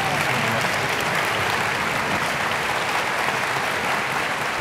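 Audience applauding steadily, a dense, even clapping from a large crowd in a theatre hall.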